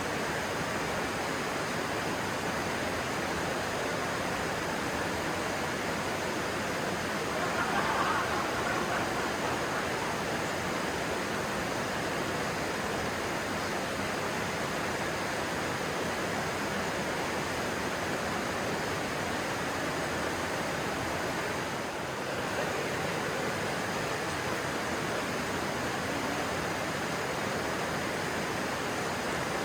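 Stream water rushing steadily, an even noise of flowing water, with a brief swell about eight seconds in.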